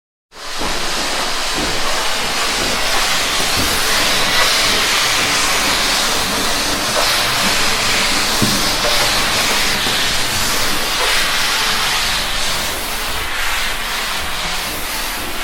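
Steam cleaner jetting steam: a loud, steady hiss that starts abruptly and holds with slight wavering.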